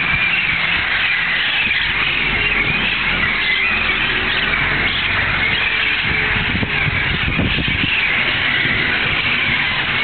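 A large flock of wild parrots calling all at once from the trees, a dense, so loud chatter of many overlapping squawks, over a low rumble that swells about seven seconds in.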